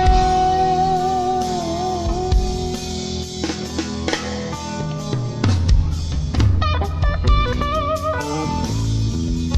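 Live instrumental rock: an electric guitar holds a long note with wavering vibrato, then plays bent, sliding phrases from about six seconds in, over drums and bass.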